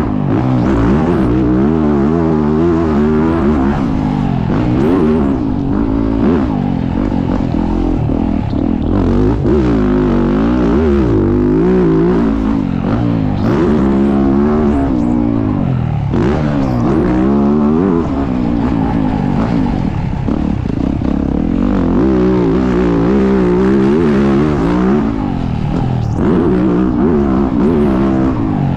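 Yamaha YZ450F four-stroke motocross engine heard up close from on the bike, at race speed. Revs rise and fall again and again as the rider works the throttle and gears through ruts, corners and jumps.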